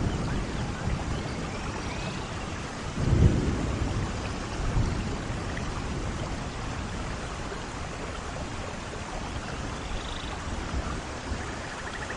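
Steady rain with low thunder rumbles: the loudest about three seconds in, a weaker one about a second and a half later.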